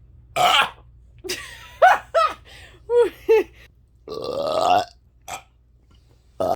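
A string of loud human burps, most of them short, with a longer belch about four seconds in that rises in pitch.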